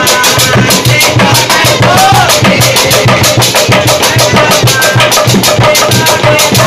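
Obrog sahur drum band: drums beaten hard in a fast, steady beat, with young men shouting and chanting along in football-supporter style.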